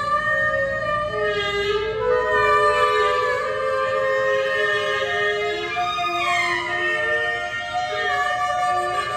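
Clarinet, alto saxophone and soprano saxophone improvising together in long overlapping held tones that drift and slide slowly in pitch against one another.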